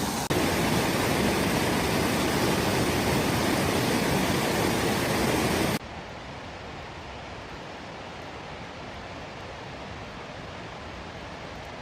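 Steady rushing noise of falling water, as of rain. It is loud and dense for about the first six seconds, then cuts suddenly to a softer, quieter hiss.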